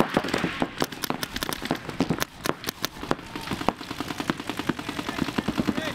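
Several paintball markers firing rapid strings of shots at once, a dense, irregular rattle of pops that thickens in the second half.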